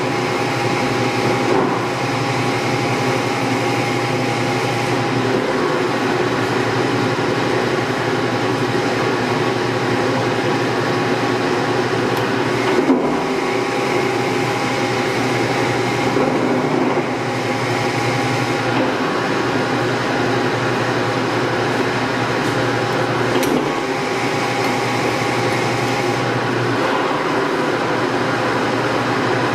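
Warner & Swasey No. 4A square-head turret lathe running under power with its two-speed motor in the low range: a steady motor hum and gear whine. The sound changes several times as the spindle is run through its speeds, with a short knock near the middle.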